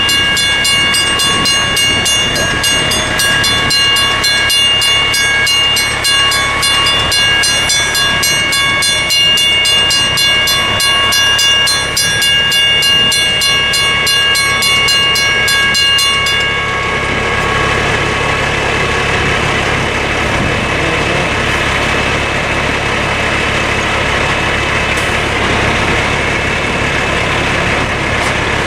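Western Cullen Hayes mechanical crossing bell ringing with rapid, evenly spaced strokes, stopping abruptly a little over halfway through. After it stops, the hi-rail truck's engine is left running steadily at idle.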